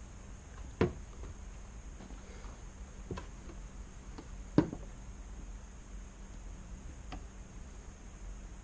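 Sharp clicks and knocks of hand tools and metal cable being handled during a kayak rudder cable repair: two louder clicks, about a second in and past halfway, with a couple of fainter ticks between.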